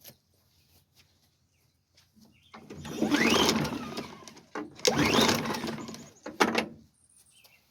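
Briggs & Stratton push-mower engine turned over twice on its recoil pull-cord starter, each pull a rising whir, with a short clatter after the second. The spark plug is out for a spark test, so the engine spins freely and does not start.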